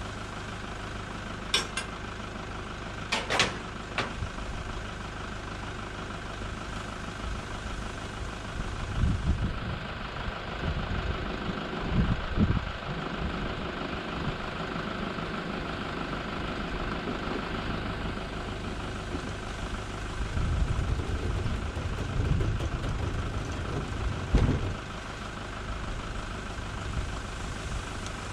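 Wind buffeting the microphone in gusts over a steady low hum, with a few sharp clicks about two and three seconds in.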